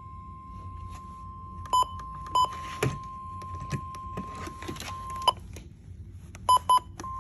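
Weather radio alert: a steady single-pitch alert tone, the warning attention signal, which breaks off a little under five seconds in and comes back near the end. Five short, loud, sharp beeps cut across it, the loudest sounds here, with faint knocks and a low hum underneath.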